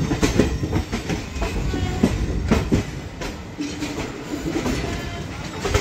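Passenger train running on the track: a steady low rumble with repeated clacks and knocks from the wheels over the rail joints, the loudest about two seconds in and just before the end.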